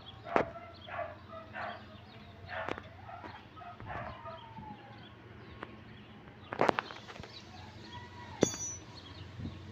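Birds calling in short repeated notes, one a falling whistle, over a faint steady low hum, with a sharp click about two-thirds of the way through.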